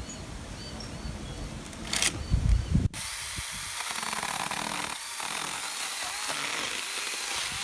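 Battery-powered mini chainsaw running and cutting into palm tree wood: a steady, even buzz that starts abruptly about three seconds in. Before it come low rumbling handling noise and a couple of knocks.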